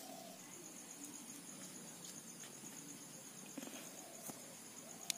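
An insect trilling steadily at a high pitch in rapid even pulses, starting about half a second in. A few faint ticks are heard underneath.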